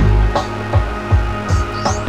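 Background music with a steady beat, drums and guitar.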